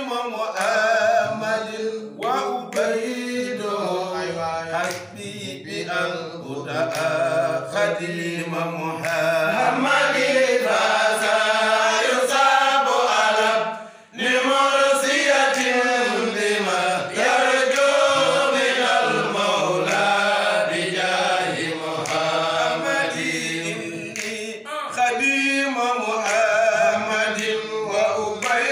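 Men's voices chanting an unaccompanied Arabic devotional poem in praise of the Prophet Muhammad (madih), with a short pause about halfway through.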